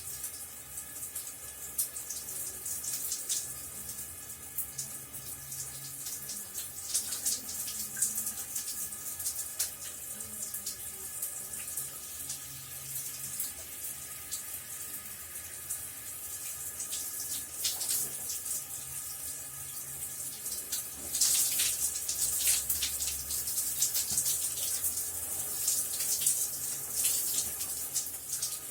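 Running shower water splattering steadily, with a denser, louder stretch about three-quarters of the way through.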